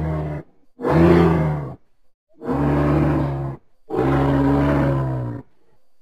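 Sound-effect Corythosaurus (crested hadrosaur) calls: four low, deep calls, each between half a second and a second and a half long, with short gaps between them; the last call is the longest.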